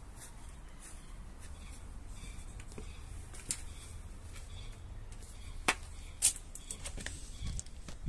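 Low steady rumble on the microphone with a few sharp clicks and taps, the two loudest a little after the middle; no engine is running.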